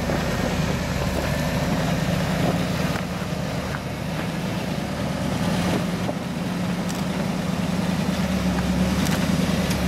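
Hummer 4x4 engine running steadily at low revs while crawling an off-road trail, with a few brief knocks or clicks scattered through.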